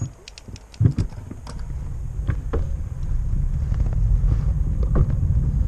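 Wind rushing over the microphone of a camera moving with a bicycle, growing steadily louder as the ride picks up speed. Scattered ticks and rattles from the bike come through it, with two sharp knocks about a second in.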